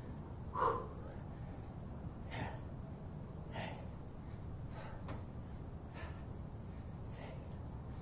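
A man breathing hard while doing bodyweight squats, a sharp exhale roughly every second and a bit in time with the reps, the first one the loudest. The breathing is the strain of a long high-rep workout.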